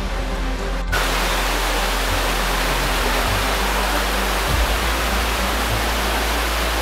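Steady rush of falling water from a waterfall, an even hiss with no rhythm, beginning with a sharp change about a second in.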